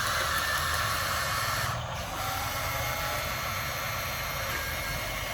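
Small electric motors and gearing of 1:16 scale RC construction machines whirring steadily.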